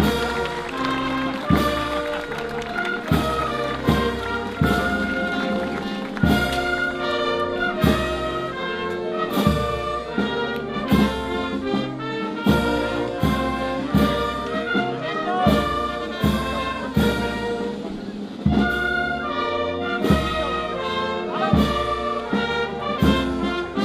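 Brass band music, loud and continuous, with a strong regular beat about every second and a half.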